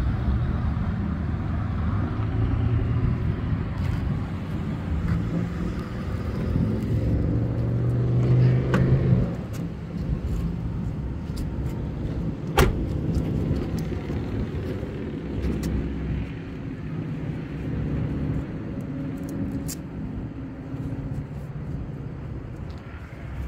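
A car engine running with a low, steady hum. It rises in pitch as it speeds up about eight to nine seconds in, then falls back. A single sharp click comes near the middle.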